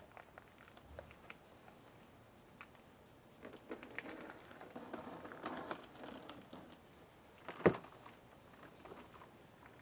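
Gloved hands handling a shrink-wrapped cardboard box and cutting the plastic wrap with a box cutter: soft rustling, crinkling and small taps, with one sharp click late on.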